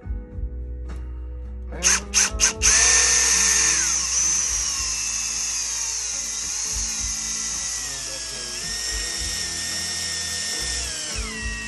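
Cordless drill/driver with a long screwdriver bit working screws in an RC truck's chassis. The trigger is blipped about four times, then the motor runs steadily for about nine seconds, its whine shifting in pitch, before it stops near the end.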